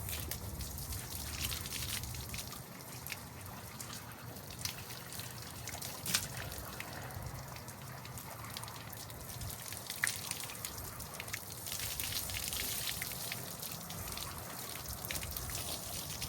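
Water being sprayed into an outboard motor to wash out mud, splashing and trickling off, with scattered dripping ticks.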